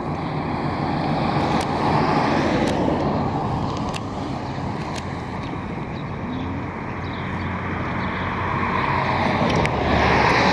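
Road traffic passing, a steady noise of cars that grows louder as vehicles go by, about two seconds in and again near the end.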